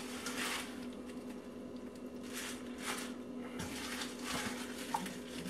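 Soft, scattered rustles of fresh spinach leaves being dropped onto a pan of thick white sauce, over a faint low steady hum.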